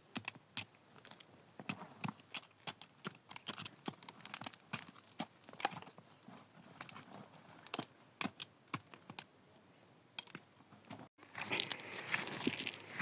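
Irregular clicks, knocks and rustling of handwork. About eleven seconds in there is a brief dropout, after which the rustling and crackling get louder and denser.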